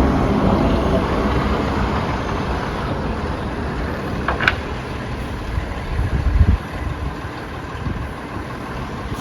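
Large snow-clearing truck running with a steady low engine rumble, a brief high squeal about four and a half seconds in, and a louder surge of rumble about six seconds in.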